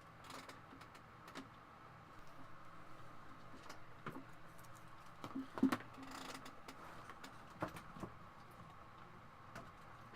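Scattered light clicks and small knocks of parts and cables being handled, with one louder knock a little over halfway through, over a faint steady hum.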